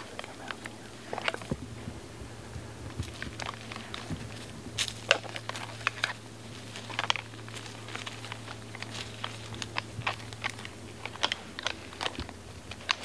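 Irregular crunching and crackling of dry leaves and brush, with a low steady hum underneath that stops near the end.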